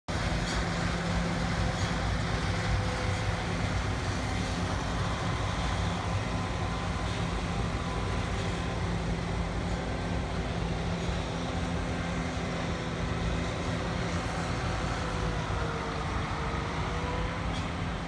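Combine harvester running steadily while harvesting soybeans, a continuous engine drone with a low steady hum and a slight dip in pitch near the end.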